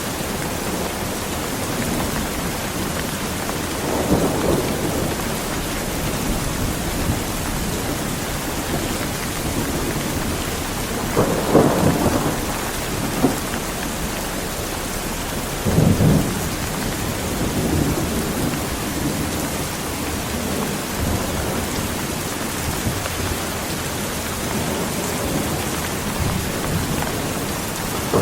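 Strong, steady rain with several rumbles of thunder; the loudest claps come about a third of the way through and again just past halfway.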